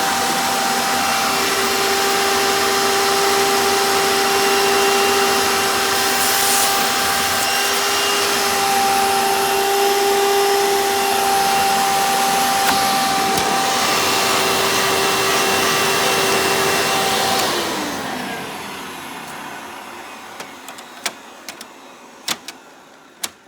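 A 1995 Hoover Encore Supreme upright vacuum runs steadily in tool mode, drawing through the hose with the crevice tool fitted. It makes a constant whine on top of rushing air. About 17 seconds in the motor is switched off, and it winds down with a falling whine that fades over several seconds. A few light clicks follow near the end.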